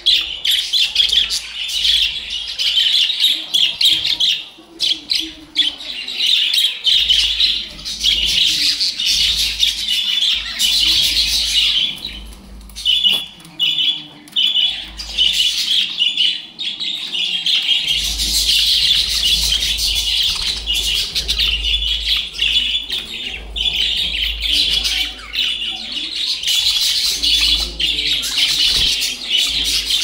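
A flock of caged budgerigars chattering and chirping together in a dense, continuous high twittering, with a brief lull about a dozen seconds in.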